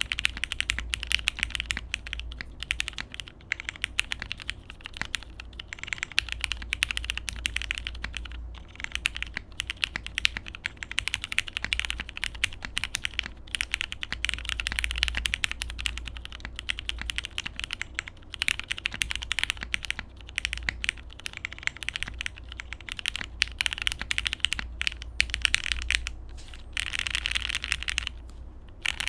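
Steady, fast typing on a plateless Hex 4b mechanical keyboard with lubed Cherry MX Hyperglide switches and PBT keycaps in an aluminium case: a dense run of key clacks with a couple of brief pauses.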